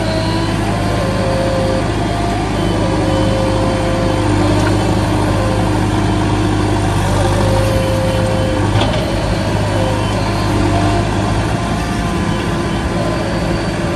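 Steady, heavy engine running, like a diesel excavator's, with its pitch stepping up and down now and then.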